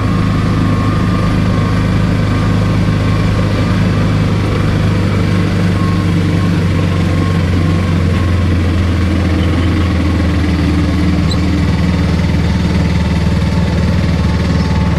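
Engine of a three-wheeled auto-rickshaw running steadily while it drives along, heard from inside its open cabin as a constant low hum.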